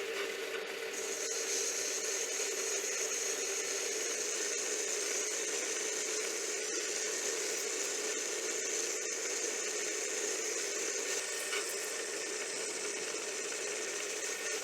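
Metal lathe running steadily while turning a steel workpiece, with a steady high whine over a lower hum.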